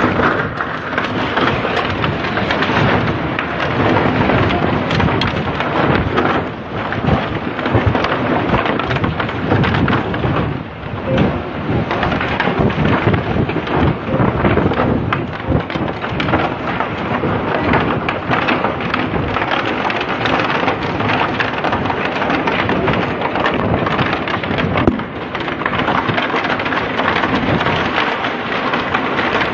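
Tornado winds blowing hard and buffeting the microphone in a loud, continuous rush that eases briefly a few times before gusting again.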